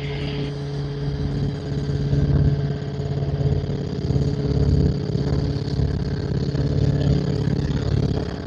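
Helicopter engine and rotor running steadily with a pulsing low beat as the helicopter lifts into a gentle hover to check its systems.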